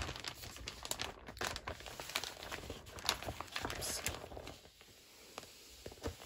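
Packaging crinkling and rustling as a pack of patterned craft paper is slid back into it. There are many quick crackles, and they die down about four and a half seconds in.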